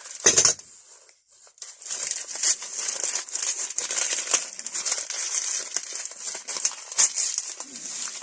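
Packaging being crumpled and crinkled by hand as a tool is unwrapped. There is a loud rustle at the start, a brief pause about a second in, then continuous crinkling.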